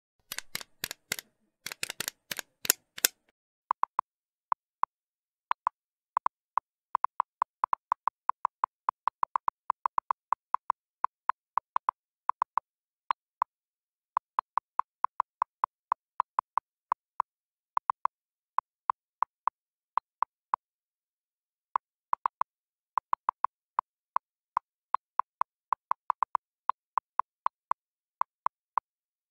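Typing sound effect for on-screen text: a long run of very short, identical beeps, one per character, a few to several a second with brief pauses. It is led in by about three seconds of quick sharp clicks.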